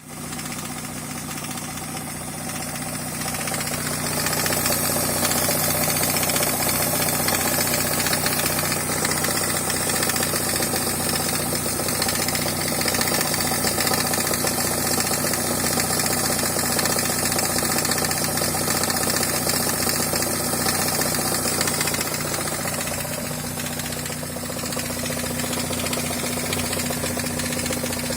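NA Mazda Miata four-cylinder engine idling, with a weird noise resonating through the engine from a loosely fitted crank pulley: the sign of a woodruff key less than 100 miles from shearing off. The sound gets louder about four seconds in and changes character a little past twenty seconds.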